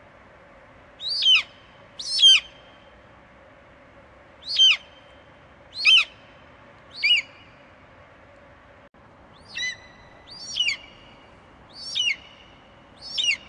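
Eagle calling: nine short, high whistled calls, each falling in pitch, spaced one to two and a half seconds apart over a faint steady hiss.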